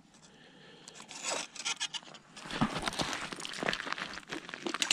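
Scraping, crunching and rustling on slushy ice and snow at the edge of an ice-fishing hole as a fish is hauled out by hand. Irregular scrapes and crackles start about a second in and grow busier about halfway through.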